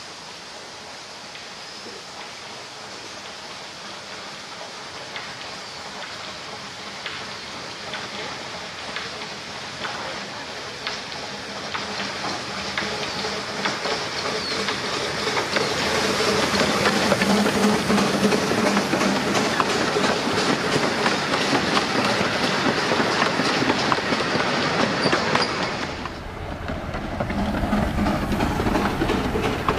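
Narrow-gauge steam saddle-tank locomotive hauling carriages, approaching and passing, with wheels clattering over the rail joints. It grows steadily louder over the first fifteen seconds or so and stays loud. Near the end the sound changes abruptly to a closer, deeper rumble as the engine goes by.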